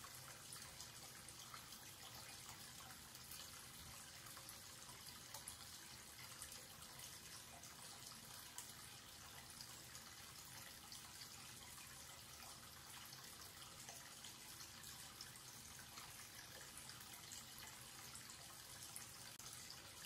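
Tap water running in a steady stream from a wall-mounted spout into a white washbasin, splashing and swirling toward the open drain. It is faint and even, mostly a high splashing patter.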